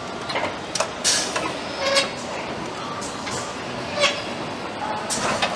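Car assembly-line factory noise: a steady background din with scattered, irregular sharp clicks and knocks of tools and parts.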